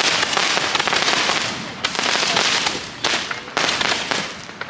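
Fireworks crackling in a dense, rapid stream of small pops, with short dips about two and three seconds in and fading near the end.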